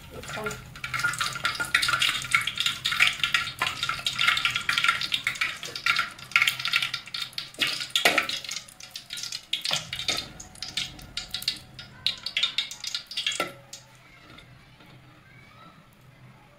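Bay leaves and whole spices crackling and sizzling in hot oil in an aluminium pot, with a steel spoon stirring and clicking against the pot. The sizzle dies down a few seconds before the end.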